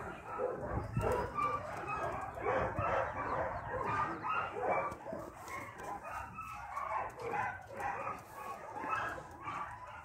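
A dog whining and yipping in many short, high cries, one after another.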